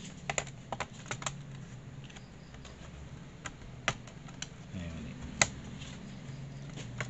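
Scattered sharp plastic clicks and taps as a laptop's bottom access cover is pried at and unclipped from the case, a quick run of them at first and then single clicks, the loudest about five seconds in. A steady low hum runs beneath.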